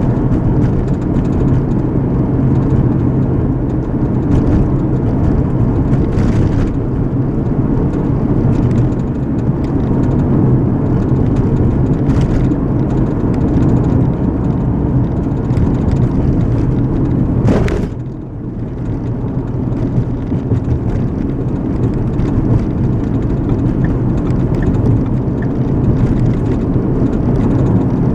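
Steady low rumble of a car driving, tyre and road noise heard from inside the cabin. About two-thirds of the way in there is a brief sharp knock, and the rumble dips for a moment before it returns.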